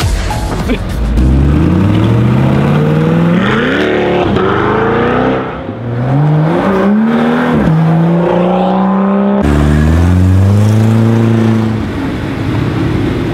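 Car engine revving hard and accelerating, its pitch climbing and dropping back several times. It drops sharply about two-thirds of the way through, then eases off near the end.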